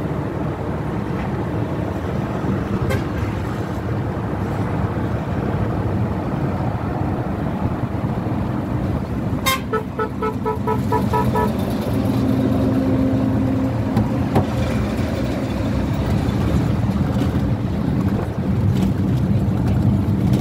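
Steady road traffic and engine noise, with a vehicle horn tooting a quick run of short beeps, about four a second for two seconds, about halfway through.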